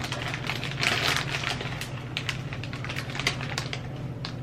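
Crinkling of several plastic chip bags being handled and held up together: irregular sharp crackles, with a steady low hum underneath.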